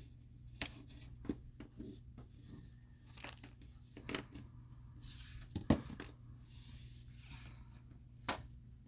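Thin plastic protective sheets being peeled and crinkled off an eyeshadow palette, with scattered small clicks and taps; the sharpest click comes a little past halfway.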